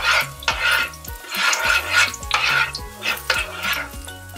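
Chopped garlic sizzling in hot coconut oil in a nonstick frying pan, stirred with a slotted spatula in quick repeated strokes, each stroke a scraping swish of sizzle. Faint background music with a bass line runs underneath.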